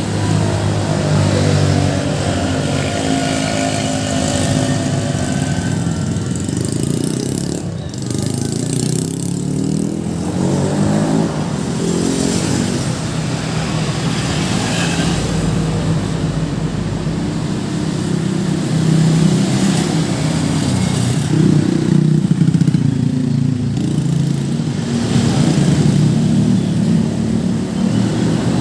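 Busy road traffic: motor vehicles passing close by one after another, their engine pitch rising and falling as each goes past.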